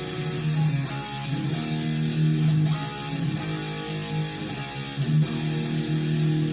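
Guitar being played: held notes and chords that change about once a second.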